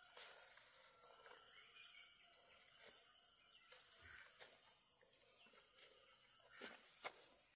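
Near silence: faint rural ambience with a steady high-pitched insect drone and a few soft clicks, the sharpest one near the end.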